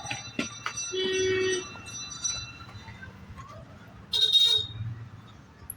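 Vehicle horns honking twice in passing street traffic: a half-second toot about a second in and a louder, shorter one about four seconds in, with a few sharp clicks near the start.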